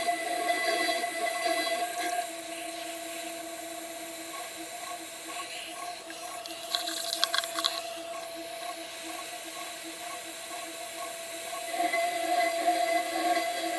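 CNC 6040 router's spindle whining steadily as its end mill cuts into an aluminium plate, the cutting noise louder at the start and again near the end. About six and a half seconds in, a short hiss with rattling clicks.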